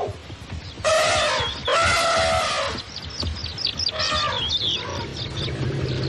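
African elephant trumpeting: two loud calls back to back about a second in, and a shorter one about four seconds in. Small birds chirp throughout.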